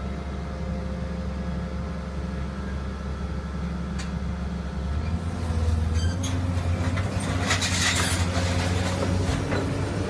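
Hydraulic power unit of a Y81 scrap metal baler running with a steady low hum; about five seconds in it comes under load and gets louder, the hum shifting in pitch, as a cylinder swings the hopper lid down. Metal clattering and scraping joins it in the last few seconds.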